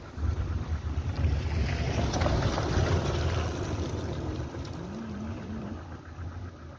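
Open safari jeep driving on a dirt forest track: a low engine and tyre rumble with wind buffeting the microphone, easing off in the last couple of seconds.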